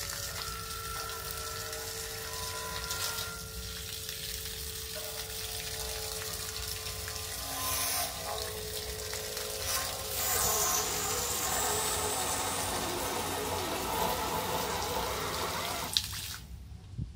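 A jet of water from a homemade pump, a small DC motor on an 18650 battery, splashing steadily onto concrete and into a basin. It stops suddenly near the end, when the pump is cut off.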